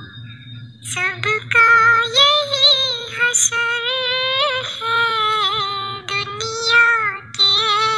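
A naat (Urdu devotional song) sung in a high, child-like voice. The long held notes waver with vibrato and ornamented turns, and the singing comes in about a second in after a short pause.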